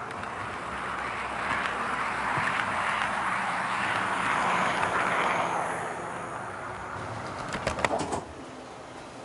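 KATO HO-scale EF81 electric locomotive model hauling a flat wagon along the track, its motor and wheels making a steady rumble that grows louder as it passes close, around four to five seconds in, then fades. A quick run of sharp clicks comes near the end.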